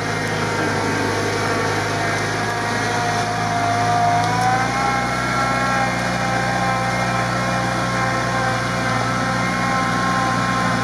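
Modified UAZ off-roader's engine running steadily under load as it crawls through deep swamp mud, its note rising a little about four seconds in and then holding.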